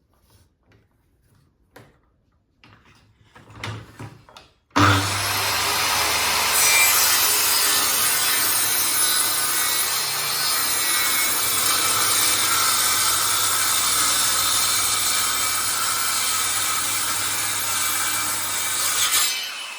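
An electric power tool cutting MDF, starting abruptly about five seconds in and running steadily for about fourteen seconds before dying away near the end. A few light knocks come before it.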